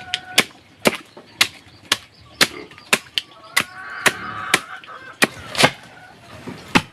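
Repeated sharp tool strikes, about two a second, with a faint drawn-out call in the background near the start and again in the middle.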